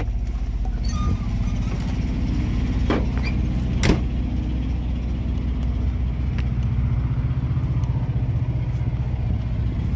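Semi truck diesel engine idling steadily, with a couple of knocks and a sharp clunk about four seconds in as the cab is left and the door shut.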